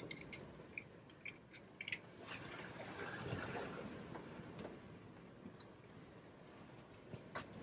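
Faint clicks and light scrapes as a caught fish is worked free of a trolling lure's hook and hung on a hand scale, over a low, steady rush of wind and sea.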